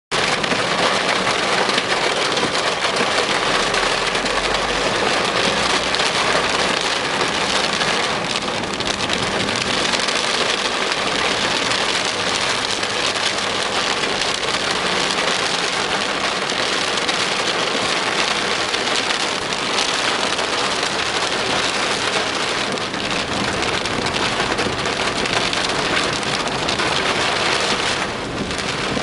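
Heavy rain pouring down steadily, a dense, even hiss of rain on surfaces.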